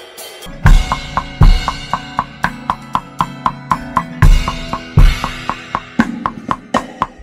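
Acoustic drum kit played in a steady groove: sharp snare and rim strokes about four a second, with heavy kick-drum hits among them. The groove starts about half a second in, after a cymbal rings out.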